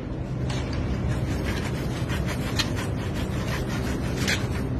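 Irregular rubbing and scraping as hands work at the mouth of a pipe stuck over a kitten's head, heard over a steady low hum.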